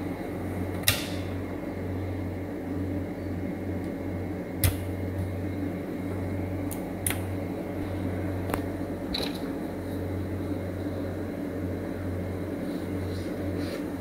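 Steady low electrical hum, with a handful of sharp clicks and taps spread through it.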